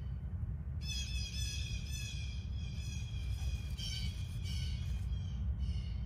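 High, thin bird calls, a run of pitched notes that starts about a second in and stops around five seconds in, over a steady low rumble.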